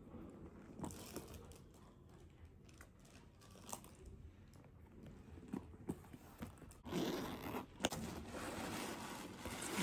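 Unboxing packaging being handled: scattered faint clicks and rustles, then from about seven seconds in a louder stretch of crinkling and rustling.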